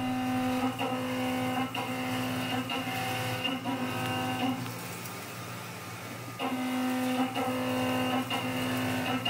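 A Dormer 1-inch, five-insert high-feed mill cutting dry across hot-rolled A36 steel in a horizontal CNC machining centre, skimming off mill scale. It makes a steady, pitched, ringing drone over a low machine hum, with brief breaks about once a second. The drone drops away for about two seconds in the middle, then returns.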